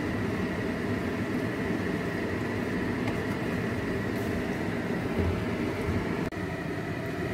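Steady mechanical whir in a kitchen, even throughout, breaking off for an instant about six seconds in.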